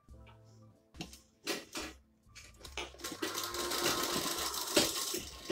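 Motor-driven domestic sewing machine starting up about three seconds in and running steadily, stitching a seam. A few clicks of the cloth and machine being handled come before it.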